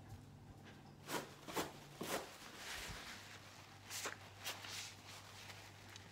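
A person sniffing and blowing her nose into a paper tissue: a handful of short, breathy bursts.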